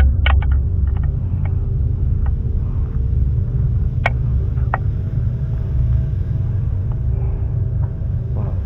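A steady low rumble with scattered short clicks and crackles, a cluster at the start and single ones later, from footsteps over litter-strewn ground.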